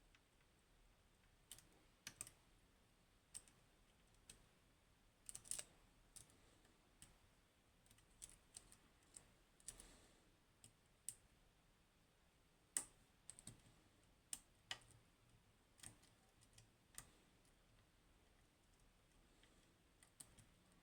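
Faint, irregular clicks and taps of a lock pick and tension tool working the spool pins inside a Goal Z seven-pin pin tumbler lock, a few sharper clicks standing out among the quieter ones.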